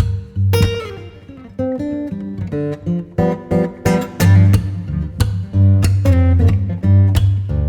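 Background music: an acoustic guitar playing a run of plucked notes over a recurring deep bass.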